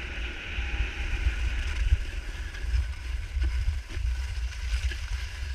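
Wind buffeting the microphone of a camera worn while skiing downhill, a heavy fluttering rumble, over the steady hiss of skis sliding on groomed snow.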